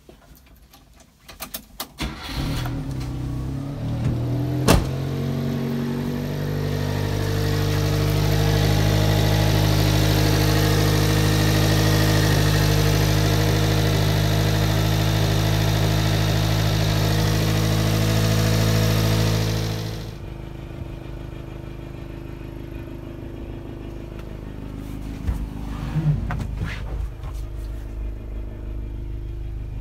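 Subaru Sambar KS4's EN07 four-cylinder engine started with the key, catching about two seconds in, then idling steadily. It is louder through the middle, heard up close at the open engine bay, and quieter near the end.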